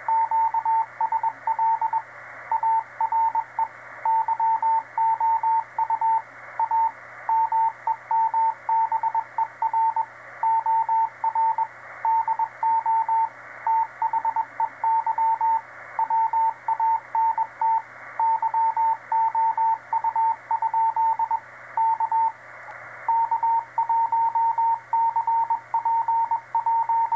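Morse code (CW) signal on the 6-meter amateur band heard through an Icom IC-746PRO transceiver's speaker: a single steady beep tone keyed in dots and dashes over band hiss. It is a station in a CW contact, sending a question and near the end its call sign, K1CPJ.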